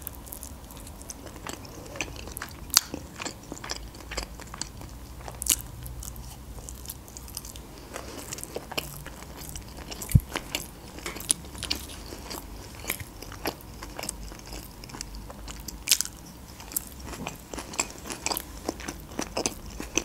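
A person biting into and chewing a mouthful of baked sushi pizza roll close to a microphone, with irregular sharp clicks from the mouth and food throughout.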